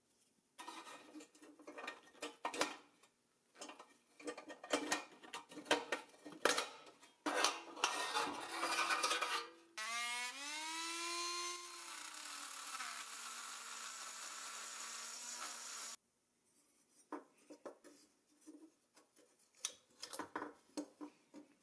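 Rusty pressed-steel toy parts handled and worked apart, with clicks, scrapes and metal clatter. About ten seconds in, a small handheld power tool spins up with a rising whine, runs steadily for about six seconds and stops suddenly, followed by light clinking of small metal parts.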